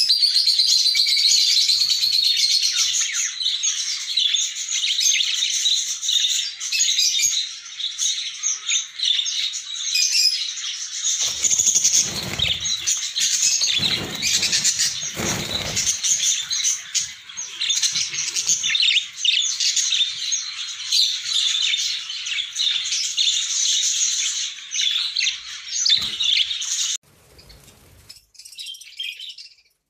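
A flock of budgerigars chattering and chirping continuously, with bursts of wing fluttering and rustling midway. Near the end the loud chatter cuts off abruptly, leaving fainter scattered chirps.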